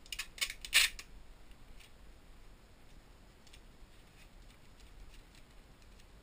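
Tape being pulled off a roll of packing tape: a quick run of sharp crackling snaps lasting about a second, loudest just before the end of the run, followed by a few faint ticks as the tape is handled.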